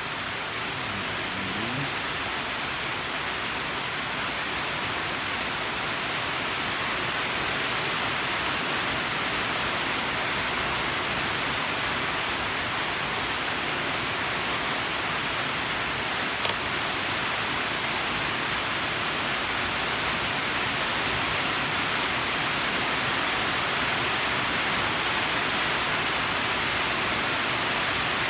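Steady, even hiss with one sharp click about sixteen seconds in.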